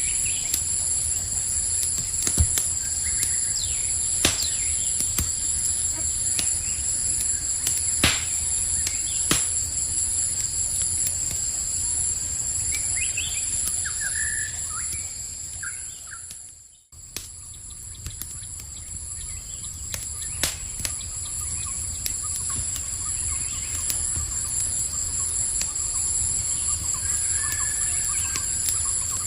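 Campfire crackling, with scattered sharp pops, over a steady high-pitched chorus of night insects. A few short bird chirps come about halfway through, and the whole sound briefly fades out and comes back just after that.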